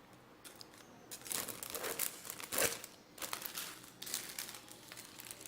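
Cellophane paper crinkling as the folded sheet is handled, in short irregular rustles.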